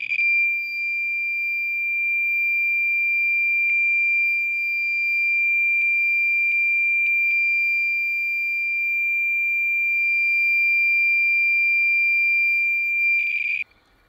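A Thermo Scientific RadEye B20 radiation survey meter sounding one continuous high-pitched alarm tone while its display reads about 74.5 kcpm from a smoke-detector radioactive source: a count rate high enough to set off the meter's alarm. The tone begins and ends with a brief rasp, has a few faint ticks over it, and cuts off suddenly near the end.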